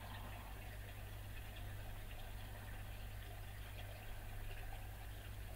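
Quiet room tone: a steady low hum, with faint light clicks of small metal helicopter parts being handled.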